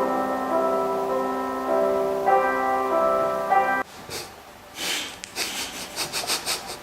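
Slow piano music with sustained notes, cutting off suddenly about four seconds in; after it come a couple of soft rustles and a quick run of scratchy strokes.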